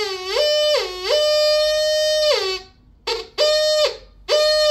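Armand Prospector metal detector's buzzy audio tone responding to a one-złoty coin waved over its search coil in static mode. The tone jumps to a higher pitch as the coin comes over the coil, dips briefly, holds for about a second and a half, then drops away. After a short gap come two short high beeps as the coin is passed again.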